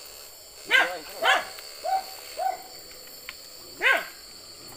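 A dog barking in short yelping calls, five of them, the loudest about a second in and near the end. A steady high-pitched whine runs beneath.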